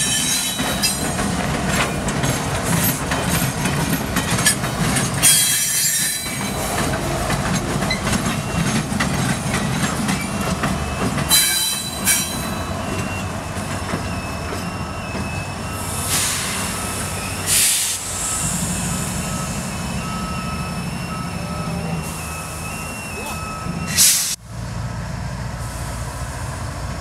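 Two Norfolk Southern diesel locomotives running light at low speed, their engines giving a steady low rumble. Steel wheels squeal in thin steady tones from about halfway to near the end, and a few short sharp knocks stand out along the way.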